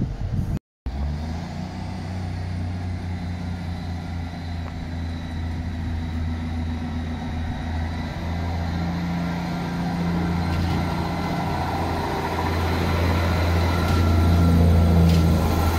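Diesel engines of a Class 158 diesel multiple unit running with a steady low drone, growing louder toward the end.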